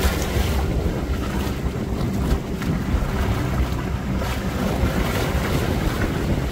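Wind buffeting the microphone on a boat at sea: a steady low rumble with choppy water sloshing beneath it.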